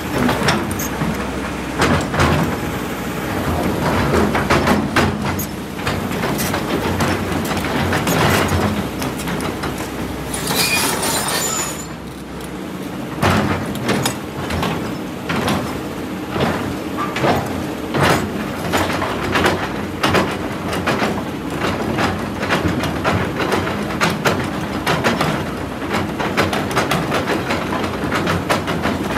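Kobelco hydraulic excavator working: the diesel engine runs under load while the steel bucket scrapes, grinds and knocks against rock, giving many sharp knocks and scrapes. A brief high hiss comes a little before the middle.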